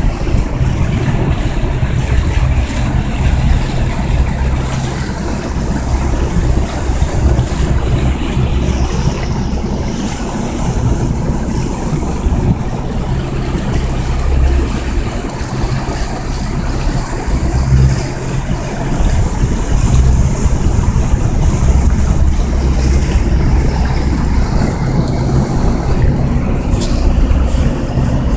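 Small motorboat running underway, its engine and the rush of water mixed with wind buffeting the microphone in an uneven low rumble.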